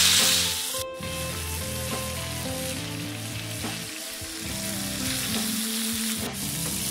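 Bacon-wrapped chicken sizzling and frying in a hot cast iron skillet, a steady hiss, with soft background music underneath.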